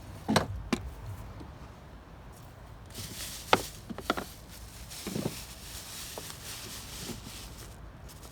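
Scattered clicks and knocks of hand tools and small metal parts being handled while wires are taken off an engine, with a soft rustle in the middle.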